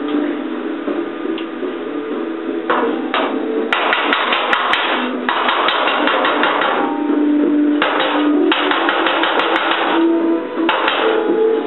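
Oxy-acetylene welding torch hissing in several spells of a second or more, starting about three seconds in, as a steel patch is welded into a car fender. Background music plays throughout.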